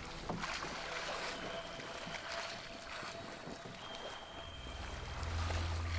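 Wind and water noise aboard a sailing pirogue under way on a choppy sea. A low rumble builds about four and a half seconds in.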